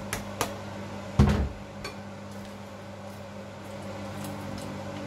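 Bowl and wooden spatula knocking against a stainless steel cooking pot as fish is tipped in and stirred: a few sharp clicks, one heavy thump about a second in, then lighter ticks. A steady electrical hum runs underneath.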